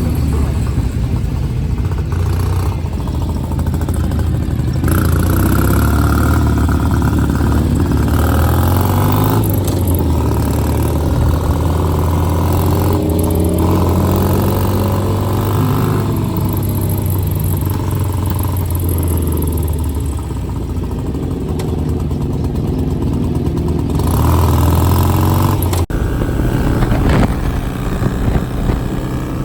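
Motorcycle engines running, heard from a 2008 Ural Patrol sidecar rig: the Ural's air-cooled boxer twin close by, with other motorcycles around it. The engine notes step up and down, and in the middle several pitches rise and fall across one another.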